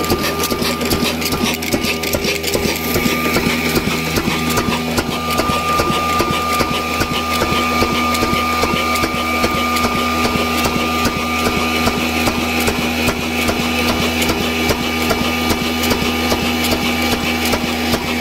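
Old stationary oil diesel engine running steadily with a regular fast knocking beat, driving a belt-driven wheat grinding mill that runs along with it.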